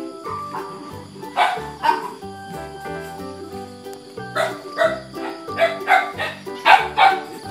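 Puppies barking and yipping, a run of short barks that come more often in the second half, over background music.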